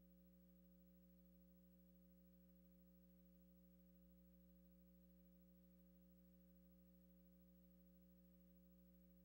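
Near silence: only a faint, steady hum made of several constant tones, with no changes or events.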